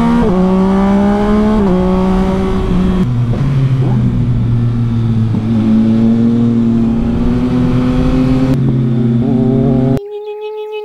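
Yamaha Tracer 9 GT's 890 cc inline three-cylinder engine through a Leovince LV Race exhaust, ridden hard on a winding road: the revs climb slowly, with a drop about three seconds in. Near the end the engine sound cuts off abruptly and a quieter steady tone holds.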